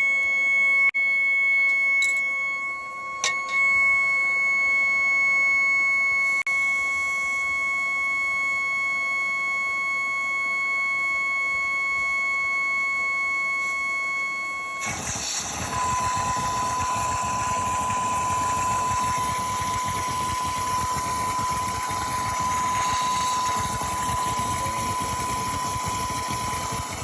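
Vacuum cleaner motor running steadily with a high whine, sucking on the engine's oil filler to hold the oil in while the sump plug is out. A few sharp clicks sound in the first few seconds. About halfway through, the sound abruptly changes to a louder, rougher rushing with a lower steady whine.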